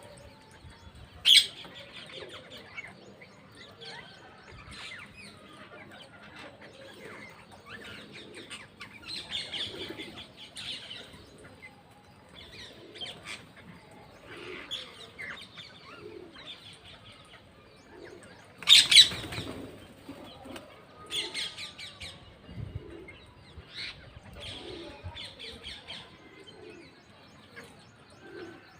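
A flock of parrots chattering with short scattered calls, broken by a loud sharp screech about a second in and a louder one about two-thirds of the way through.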